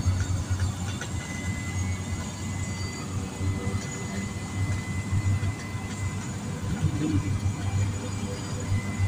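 Small propeller airplane's engine running steadily while the plane taxis, heard from inside the cabin as a low drone with a faint high whine through the middle.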